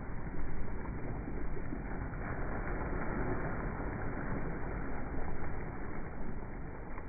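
Small waves breaking at the shoreline and washing up over a sandy beach: a steady rushing wash that swells as each wave comes in.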